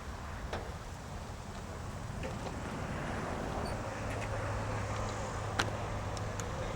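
A vehicle engine running steadily, with a low hum coming in about four seconds in and a few faint clicks.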